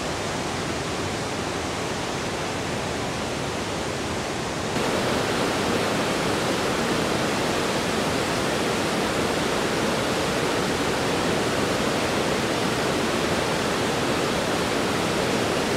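Floodwater of the Mae Klang river rushing steadily over the waterfall, a dense, even roar of water. It gets suddenly louder about five seconds in.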